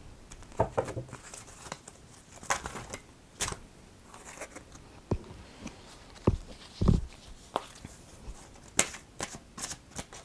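A deck of reading cards being shuffled and handled by hand: irregular soft card clicks, riffles and slaps.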